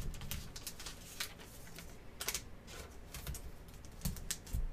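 Glossy trading cards handled and shuffled, with a card slid into a clear plastic sleeve: an irregular run of light clicks and scuffs, a little louder near the end.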